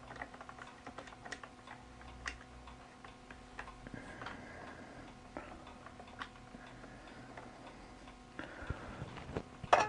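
Faint, irregular clicks and taps of a cable being handled and fed around a metal camera-rig pole, over a low steady hum.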